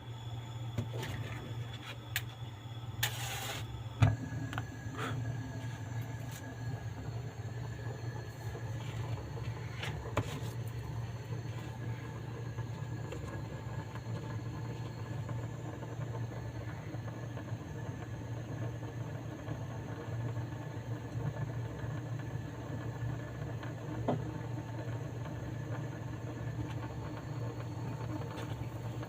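A steady low mechanical hum runs throughout. There is a short hiss about three seconds in, a sharp click just after it, and a few faint handling clicks later.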